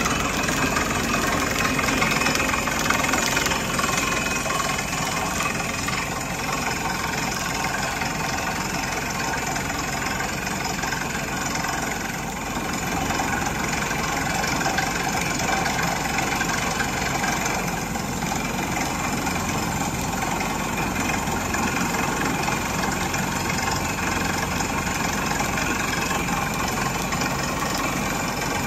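Crawler-mounted water-well drilling rig running steadily as it bores a deep well: its engine and hydraulics run while air blows dust and cuttings out of the borehole.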